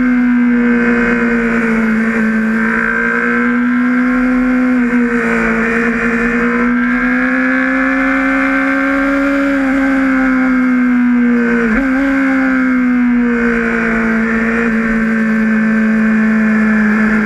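Honda sportbike engine running hard at speed, recorded onboard with wind rush over the fairing. The engine pitch holds high, swelling and easing gently as the throttle changes, with one quick sharp dip and recovery about twelve seconds in.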